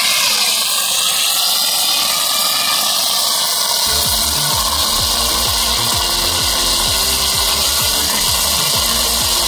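Hot oil sizzling and spitting steadily in an iron wok. From about four seconds in, a low rhythmic thudding pulse of about two beats a second joins it.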